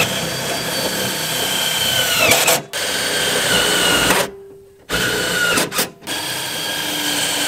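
Power drill driving screws into rammed-earth formwork, its motor whining in four runs of one to two seconds with short pauses between, the pitch dropping as each run winds down.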